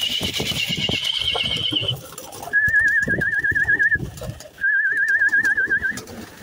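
A loft of domestic red pigeons cooing and shuffling, with wings fluttering. Over them, a warbling whistle sounds three times, each lasting about a second and a half; the first is higher than the other two.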